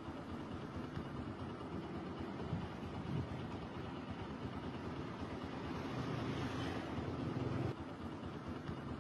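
Steady low mechanical rumble, like an engine or machinery running, with no speech. It swells slightly about six seconds in and drops back a little near the end.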